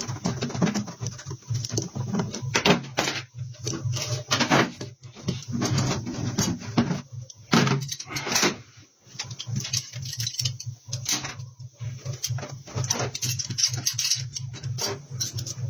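Irregular knocks, clicks and scrapes of hand tools being worked and handled against a tire: a stitching roller pressed over the rubber, then set down, and heavy shears picked up.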